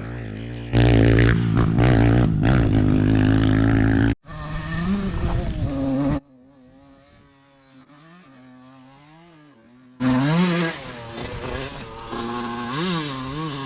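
Off-road race engines revving up and down as the vehicles ride past, in several short clips that cut abruptly from one to the next. The loudest stretch comes in the first few seconds. Between about 6 and 10 seconds a fainter engine rises and falls in pitch.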